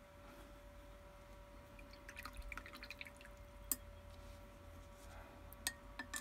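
Paintbrush swished in a mug of rinse water, with small dripping and splashing sounds, then a few sharp taps of the brush against the mug. A faint steady hum runs underneath.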